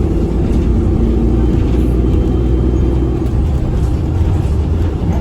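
Nova Bus LFS city bus running, heard from inside the cabin: a loud, steady low hum with several even tones under the engine drone. This is the odd hum the bus makes, whose cause is unknown.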